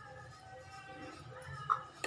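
Faint background music with soft held tones.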